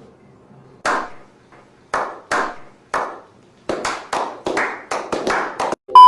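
Hand claps, a few spaced out and then coming faster, each with a short trailing echo. A loud steady beep starts right at the very end.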